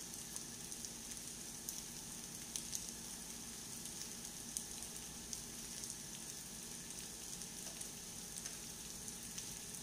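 A shredded cabbage mixture topped with hot dog slices sizzling in a pan over a gas flame: a steady hiss with scattered small crackles.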